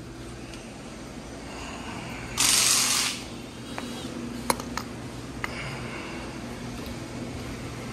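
Hand-tool work on a dirt bike: a short rushing hiss about two and a half seconds in, then a few sharp metallic clicks, over a steady low hum.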